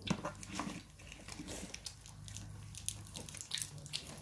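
Soft chewing and wet mouth clicks of a child eating a piece of candy, with scattered small ticks over a low steady hum.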